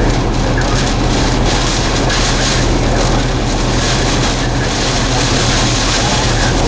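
Wind-driven heavy rain rushing against a vehicle in a severe tornadic thunderstorm, a loud, steady wash of noise with a low steady hum underneath.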